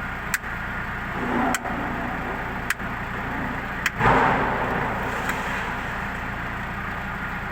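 Ford Cargo truck's diesel engine idling steadily, with four sharp clicks about a second apart and a short burst of hiss about four seconds in.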